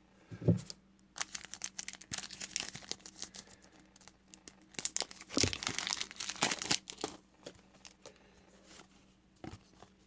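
Plastic trading card pack wrapper being torn open and crinkled in the hands, in two long spells of crackling, with a short low thump about half a second in.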